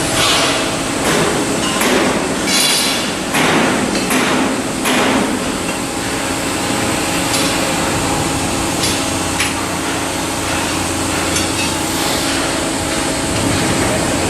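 Hammer blows on steel during fitting of a ship's hull block: about seven ringing strikes in the first five seconds, then a steady background hum.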